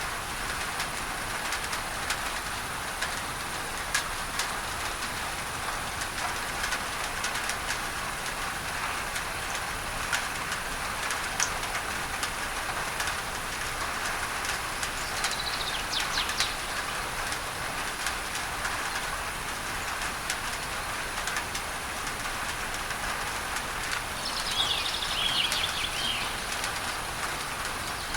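Rain pattering on a tin roof, mixed with steady masking noise, with many small sharp drop ticks. Birds chirp briefly about halfway through and again near the end.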